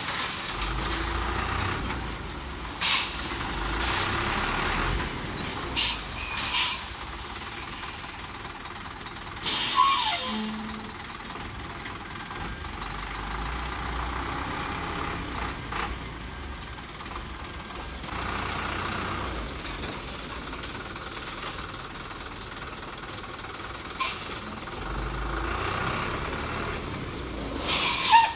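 Thaco dump truck's diesel engine running as the truck creeps along with its bed tipped up, spreading its load. Its air brakes hiss sharply about six times; the longest hiss comes about ten seconds in.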